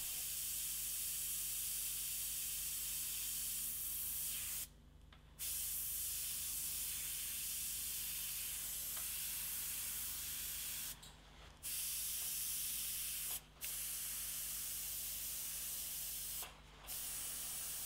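Gravity-feed Iwata airbrush spraying paint: a steady hiss of air and atomised paint, cut off briefly four times as the trigger is let go.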